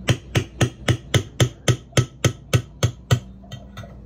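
A mixing utensil knocking against a bowl while a pudding mixture is beaten by hand: a dozen sharp, evenly spaced knocks at about four a second, then a few fainter ones near the end.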